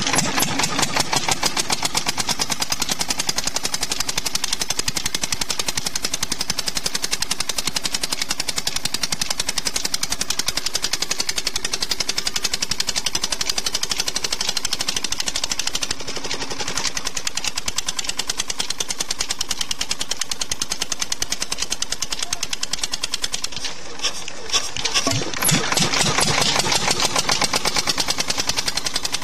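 Petter stationary diesel engine running on pure jatropha oil, with a rapid, even knocking beat from its firing strokes. The sound grows louder for a few seconds near the end.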